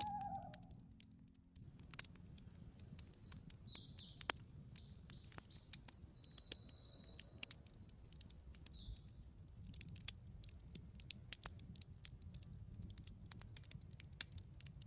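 Campfire crackling with irregular small pops over a low steady rumble. A songbird sings high, rapid runs of repeated downward-sliding notes from about two seconds in until about nine seconds in.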